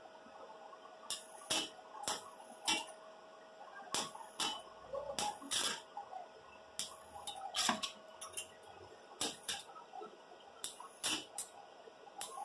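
Stick-welder electrode tapping and scratching against a perforated stainless steel drum to strike an arc: irregular sharp clicks and short crackles, roughly two a second, over a faint steady hum.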